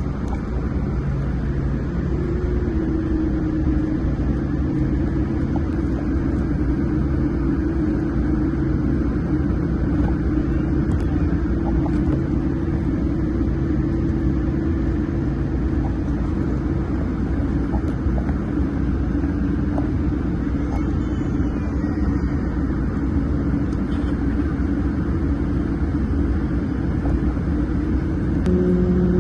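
Boeing 787-9 airliner heard from inside the cabin: a steady, loud low rumble with an even engine hum over it.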